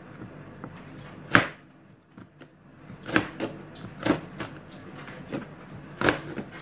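Chef's knife slicing fresh ginger on a plastic cutting board: irregular knocks of the blade striking the board, about six of them, the first, about a second in, the loudest.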